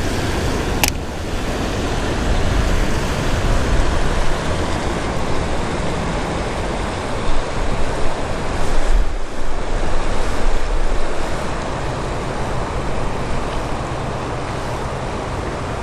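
Steady rushing of a flooded river's whitewater with wind buffeting the microphone. A single sharp click just under a second in.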